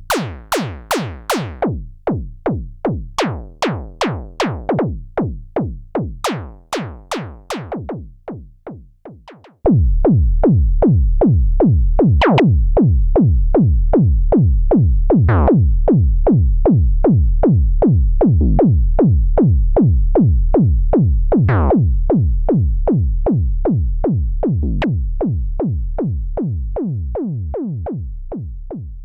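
Moog Werkstatt-01 analog synthesizer patched as a kick drum: a steady, fast pulse of synthetic kicks clocked by its LFO, each with a quick downward pitch sweep from the envelope on the oscillator's FM input. About nine seconds in the kicks turn abruptly louder and deeper, then fade out near the end.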